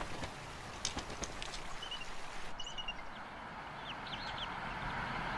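A few short, high-pitched chirps from bald eagles over a steady background hiss, with a few sharp clicks in the first couple of seconds.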